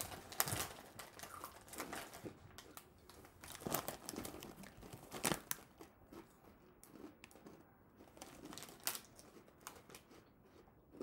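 Foil snack packaging crinkling and rustling as it is handled and turned, with several sharper crackles about half a second in, around 4 and 5 seconds, and near 9 seconds.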